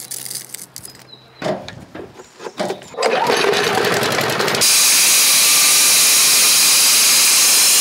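A few knocks on stone, then a handheld power tool starting up about three seconds in and working into paving stone with a loud, steady noise.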